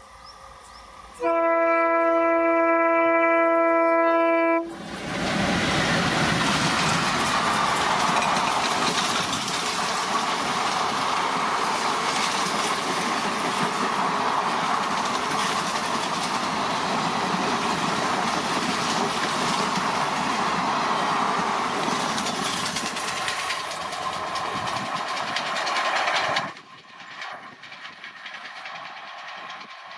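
Twin ALCo diesel locomotives sound one long horn blast of about three seconds. The train then passes close by with loud engine noise and wheels clattering over rail joints for about twenty seconds. The noise cuts off sharply near the end, leaving quieter train noise.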